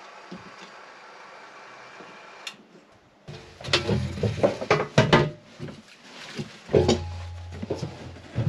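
Clunks and knocks of timber and tools being handled and clamped while a glued web frame is fitted. A cluster of sharp knocks comes about three to five seconds in, and another loud knock near the end.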